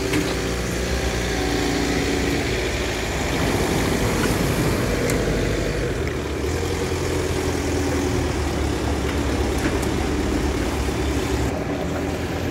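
Forklift truck engine running steadily as it carries a loaded pallet.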